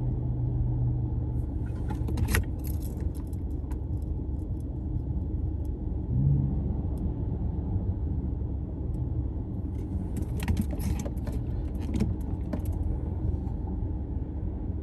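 Steady low road and engine rumble inside a moving car's cabin, with light jingling, clicking rattles about two seconds in and again around ten to thirteen seconds in.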